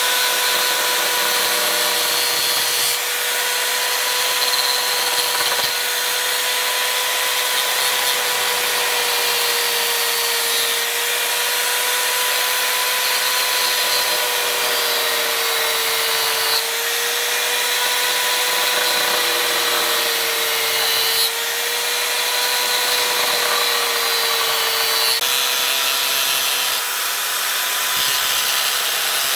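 Electric power tool running continuously: a steady motor hum that sags slightly in pitch at times, as if under load, over a loud rasping hiss of cutting or abrasive work that shifts every few seconds.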